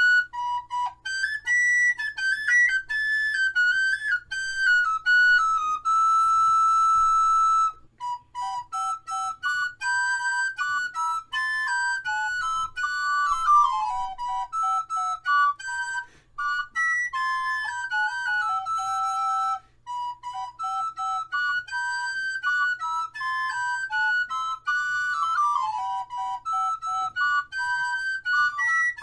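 Background music: a solo flute melody of quick, stepping notes, with one long held note about six seconds in.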